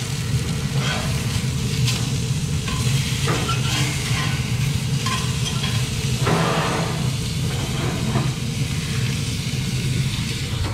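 Steak searing in a very hot cast iron skillet, sizzling steadily, with metal tongs clinking against the pan a few times as the meat is turned. A steady low hum runs underneath.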